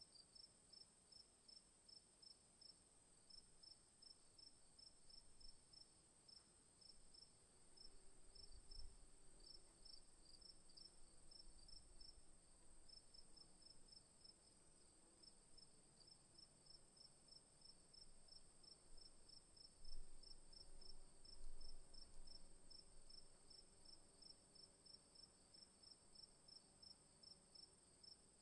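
Insects chirping, faint: a steady high buzz with a quicker chirp repeating about four times a second over it. There are a few soft low thumps about a third of the way in and again around two-thirds through.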